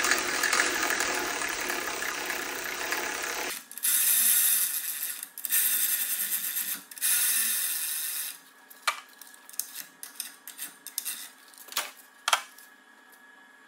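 Cordless electric ratchet running propeller hub bolts in until they seat. It whirs steadily for about three and a half seconds, then in three short runs of about a second each, followed by a few sharp clicks.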